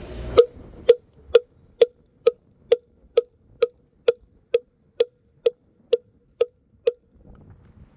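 Moktak (Korean Buddhist wooden temple block) struck with its mallet at a steady pace, about two knocks a second, fifteen in all, each with a brief pitched ring. The knocking stops about a second before the end.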